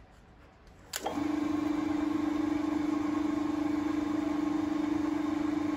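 A three-phase rotary packet switch clicks on about a second in, and the electric motor of an old English-type pillar drill starts up and runs with a steady hum.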